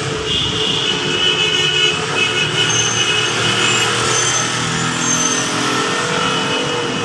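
Motor vehicle engines running steadily in nearby street traffic, with high-pitched tones over the top.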